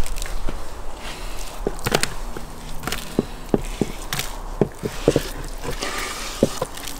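Seasoned sturgeon steaks being pushed off a wooden board and dropping into a plastic basin: a string of short, irregular knocks and thuds, with the board tapping the basin.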